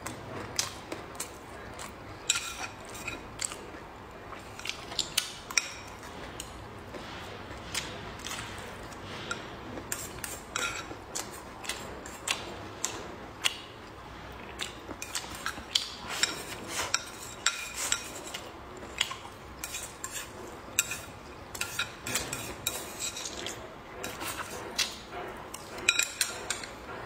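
Chopsticks clicking and scraping against a ceramic bowl as food is picked out, with many quick, irregular clinks that ring briefly.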